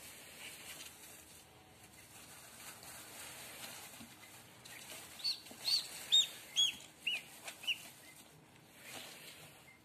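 Newly hatched duckling peeping: about seven short, high peeps in quick succession near the middle of the stretch, over faint rustling of straw.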